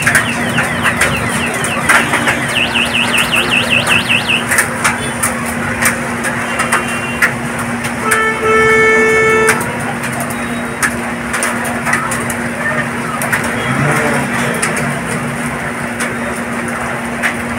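Heavy rain mixed with hail falling on a street: a steady hiss full of sharp hits. A vehicle horn honks once for about a second, about eight seconds in, over a low steady hum, and a run of quick high chirps sounds a few seconds in.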